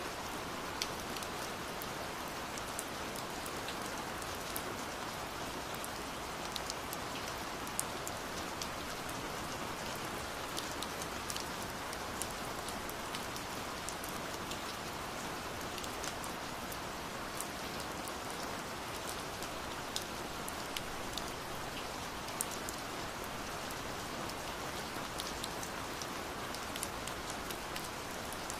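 Steady rain falling: an even hiss with many scattered sharp ticks of single drops.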